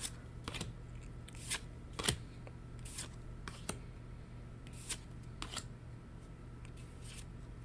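Trading cards being slid and flicked one behind another while a booster pack is sorted through: a string of brief, sharp card snaps at uneven intervals, about one every half second to second and a half, fairly faint.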